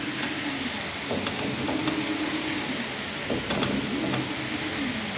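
LG automatic washing machine agitating: the motor hum rises, holds and falls in pitch over and over, about every two seconds as the drum reverses, over water churning. The machine is running normally after its door-lock micro switch was replaced.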